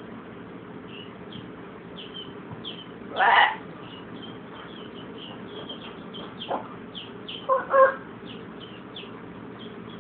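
Blue-and-gold macaw calling: a short rough, noisy call about three seconds in and a quick two-part pitched call near the eight-second mark. Faint small high chirps sound throughout.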